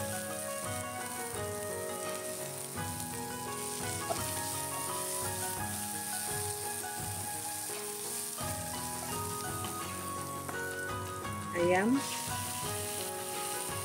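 Garlic and mushrooms sizzling steadily in hot oil in a wok as they are stir-fried with a wooden spatula, over soft background music.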